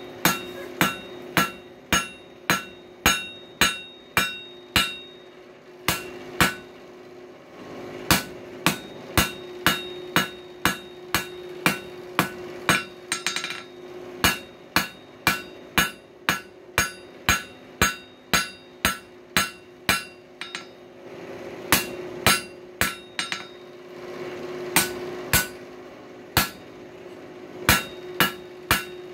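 Hammer blows on hot coil-spring steel over an anvil, forging the screwdriver's tip. The strikes come about two a second in runs broken by short pauses, each with a bright ringing note. A steady low hum runs underneath.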